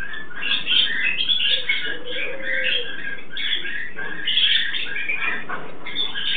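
Blue-fronted amazon parrots calling as they mate: an unbroken stream of short, overlapping chirps and squawks.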